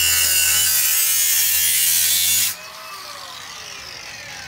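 AEG cordless angle grinder cutting through copper pipe held in a vise, a loud high grinding hiss. About two and a half seconds in, the cut stops abruptly and the disc spins down with a falling whine.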